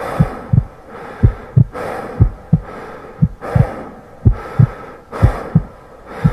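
Slow heartbeat-like double thumps, one deep pair about every second, each followed by a soft hissing swell, laid over the footage as a soundtrack effect.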